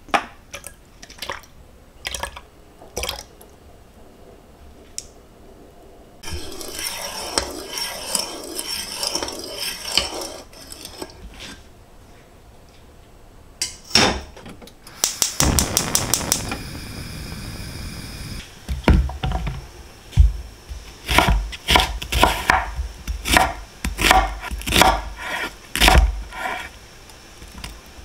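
Kitchen preparation sounds: dishes and utensils clinking, a few seconds of steady hiss, then a knife chopping on a wooden cutting board, about two knocks a second, through the second half.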